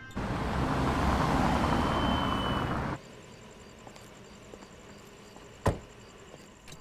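Steady rush of road-traffic noise for about three seconds, cutting off suddenly. Then quiet room tone with one sharp click near the end.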